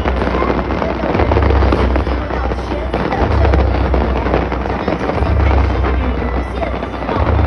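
Fireworks display going off in a dense, continuous crackle of many small bursts, with a deep low rumble swelling every second or two. Music plays along underneath.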